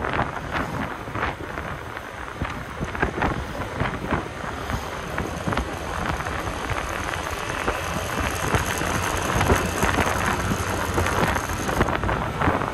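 Wind buffeting the microphone in gusts on a moving Honda motor scooter, over the scooter's running engine and tyre noise on the road.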